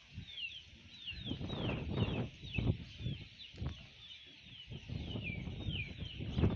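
Small birds chirping, a quick run of short falling chirps about three a second, over gusty wind buffeting the microphone.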